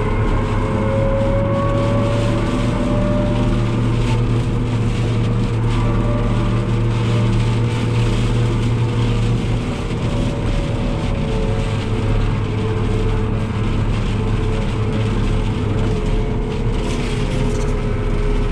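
A New Holland TM165 tractor's diesel engine running steadily while driving, heard from inside the cab. The engine note eases a little about halfway through.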